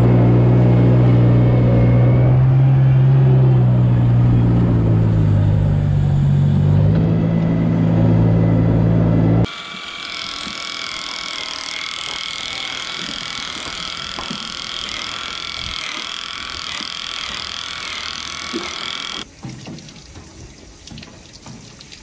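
Diesel engine of a small farm loader running steadily, its pitch wavering slightly. About nine seconds in it cuts abruptly to the high, steady whine of an electric angle grinder with a trimming disc cutting a cow's hoof, which stops near the end.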